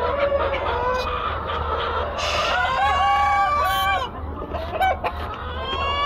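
A dense flock of chickens clucking and calling, with a rooster crowing once about two and a half seconds in and another crow beginning near the end.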